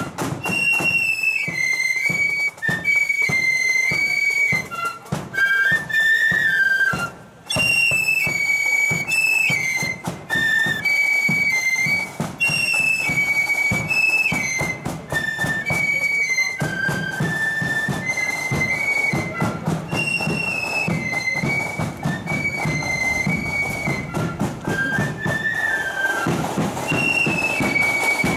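Marching flute band playing a tune in unison, the flutes carrying a high melody over steady drum beats.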